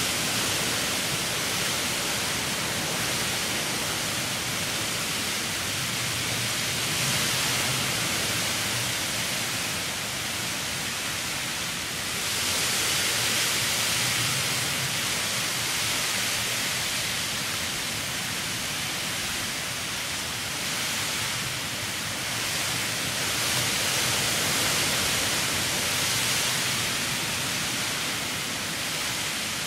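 Heavy rain pouring in a windy storm, a steady hiss that swells and eases a few times with the gusts.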